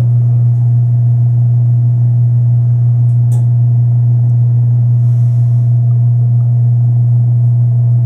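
A loud, steady low hum on one unchanging pitch, with a faint click a little after three seconds in.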